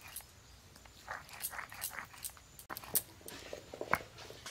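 Wet spice paste being ground on a shil-nora: the hand-held grinding stone scrapes over the flat stone slab in short, irregular strokes, with a few sharp stone-on-stone clicks near the end.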